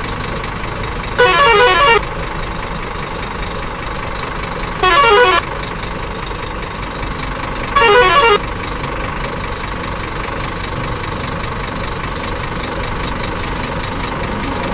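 Truck horn sounding three short blasts about three seconds apart, each a quick warbling tone that drops in pitch, over a steady engine rumble.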